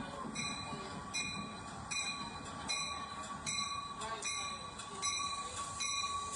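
LEGO train running past on plastic track: a steady motor whine with a rhythmic clatter that repeats about every three-quarters of a second.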